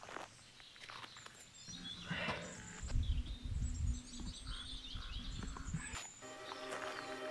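Outdoor ambience with small birds chirping now and then and a low rumble through the middle. Music with steady tones fades in near the end.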